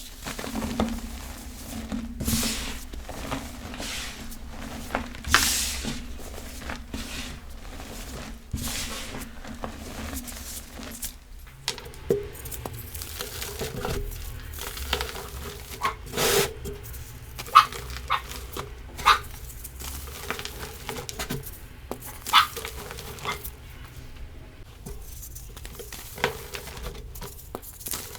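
Powdery chalk reforms being crushed and crumbled by hand: an uneven run of crunches and crumbling, with sharper cracks now and then.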